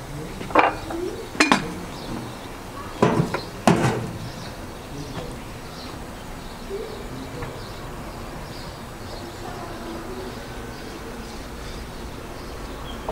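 Kitchen utensils and dishes clinking: about five sharp knocks in the first four seconds, then only a quieter steady background.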